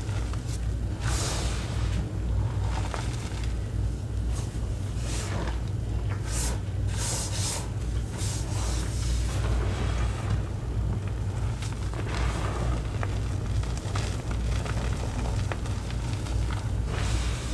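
Hands squeezing and pressing a heap of crushed gym chalk and cornstarch powder: soft crunching and swishing of the compacting powder in uneven bursts, over a steady low hum.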